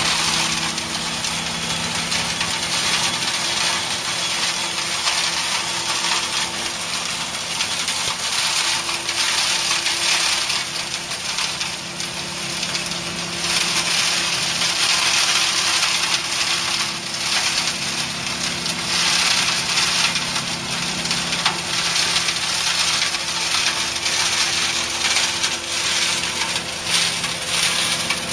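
Tractor-driven fodder blower running steadily: a constant hum from the tractor and blower fan under a dense, rattling hiss of cut grass being blown through it.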